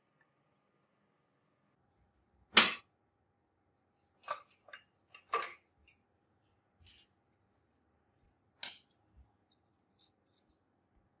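Sharp knocks and clicks of a plating rig being handled: a wooden stick with a copper alligator clip taken off a glass beaker, and wire hooks lifted out of the bath. One loud knock about two and a half seconds in, then a scattering of lighter clicks.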